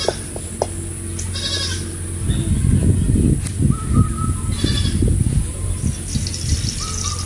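A goat bleating twice, each call about half a second long, over a low rumbling noise that is loudest in the middle.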